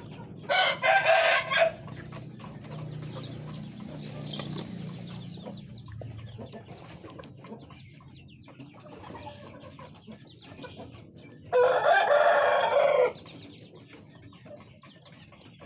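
A rooster crowing twice, the loudest sounds here, each crow about a second and a half long, the second coming about ten seconds after the first.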